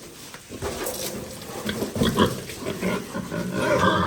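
Pigs making irregular calls at their pen, getting louder and more frequent in the second half.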